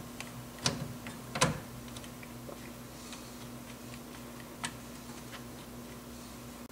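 Steel brake lines and their flare-nut fitting clicking and tapping against the master cylinder as they are manoeuvred into line with the port: a few sharp clicks, the loudest about a second and a half in, with fainter ticks between, over a steady low hum.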